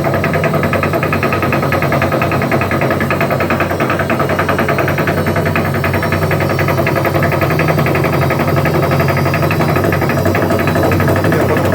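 Wagner washing machine drum turning with a steady, rapid rattling knock. The noise is the sign of a broken drum spider (the cross-shaped support on the back of the drum), as the repairman diagnoses.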